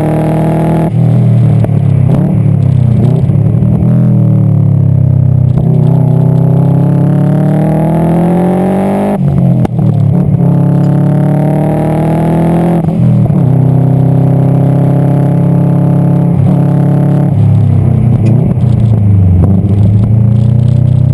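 Subaru Impreza STI GC8's turbocharged flat-four engine under hard track driving, revs climbing for several seconds at a time and falling sharply at gear changes about 9 and 13 seconds in, with dips where it comes off the throttle. The car is running with an exhaust leak that leaves it down on power.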